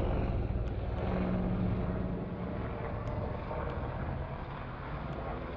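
An aircraft flying overhead: a steady engine drone that slowly fades as it moves away.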